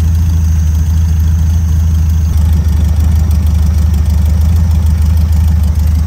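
1972 Volkswagen Beetle's air-cooled flat-four engine idling steadily, its ignition timing freshly set.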